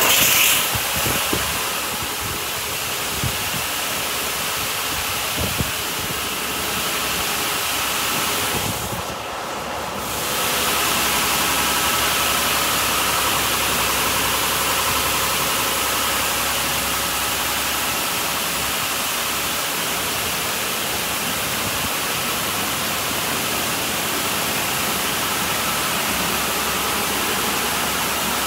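Mark VII Merchandiser in-bay automatic car wash spraying water onto a car: a steady, loud hiss of spray over the machine's low running hum. The spray cuts out for about a second around nine seconds in, then comes back and runs steadily.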